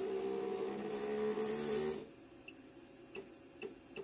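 JACK JK-T1906 pattern tacker's feed-frame stepper motors running steadily as the frame jogs along under the programmer's arrow key, stopping suddenly about two seconds in. A few sharp clicks with short high beeps follow, single steps from the keypad.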